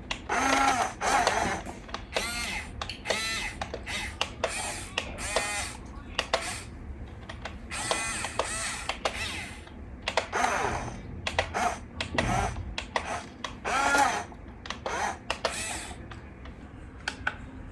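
Electric gear motors of an RC Huina excavator whining in repeated short bursts that rise and fall in pitch as the arm and bucket move, with clicks and rattles between them.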